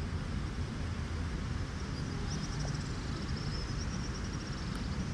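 Open-air outdoor ambience: a steady low rumble, with a brief high, rapid chirping trill about two seconds in.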